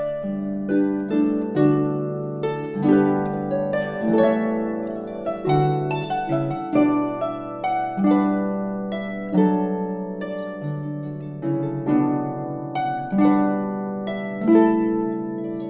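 Background music: a harp playing a flowing melody of plucked notes, each note ringing and fading.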